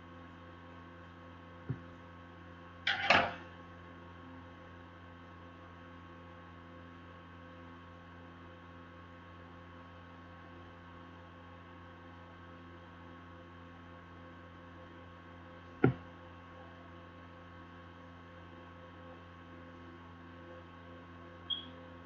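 Steady electrical hum with a few isolated clicks and knocks: a brief rasping knock about three seconds in is the loudest, with a sharp click about sixteen seconds in.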